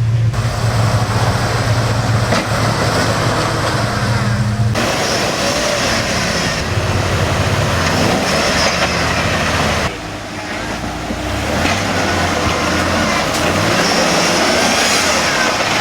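Engine of a lifted off-road Jeep running while crawling a trail. A steady low hum that changes about five seconds in, dips briefly about ten seconds in, then picks up again.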